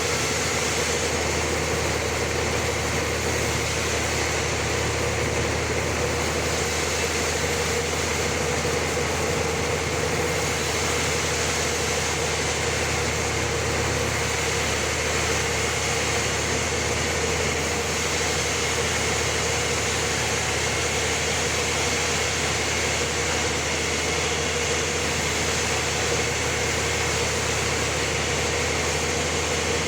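Homemade band sawmill running steadily, its motor and blade giving an even mechanical drone with a steady mid-pitched hum.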